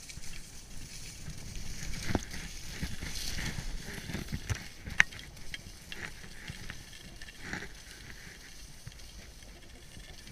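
Skis sliding and scraping over packed snow on a downhill run, a continuous hiss with low wind rumble. A race bib and jacket fabric rub and flap against the chest-worn camera, adding scattered clicks and rustles.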